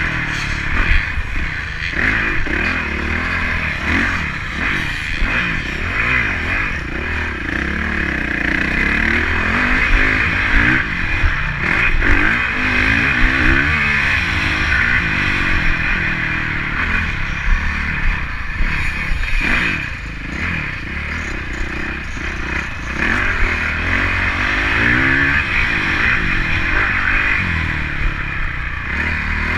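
Honda CRF four-stroke motocross bike engine, heard from on the bike, revving up and falling back over and over as the rider accelerates, shifts and brakes along the dirt track.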